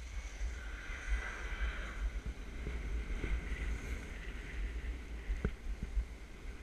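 Wind buffeting the microphone of a skier's camera in a gusty low rumble, over the hiss and scrape of skis running on packed, groomed snow. A few sharp clicks, the loudest about five and a half seconds in.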